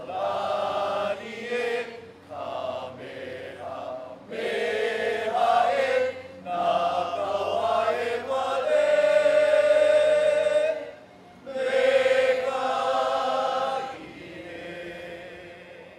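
A group of voices singing together, in phrases with long held notes and short breaks between them, softer near the end.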